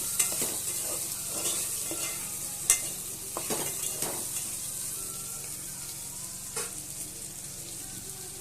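Boiled taro (arbi) pieces frying with a steady sizzle in oil in a pan while being stirred, the utensil scraping and knocking against the pan a few times, the sharpest knock about two and a half seconds in.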